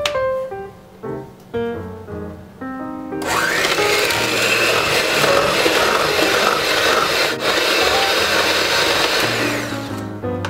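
Electric hand mixer starting about three seconds in and running at a steady speed, its beaters whipping instant vanilla pudding mix and cream in a stainless steel bowl, then stopping near the end. Background music of plucked notes plays throughout.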